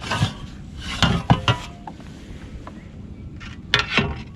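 A few short knocks and rubbing scrapes against a plastic kayak and its gear, with the sharpest ones near the start, just after a second in, and near the end, as a caught fish is handled aboard.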